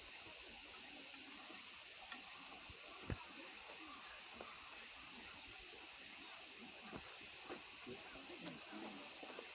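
A steady, high-pitched insect chorus, unbroken and even, with no single caller standing out.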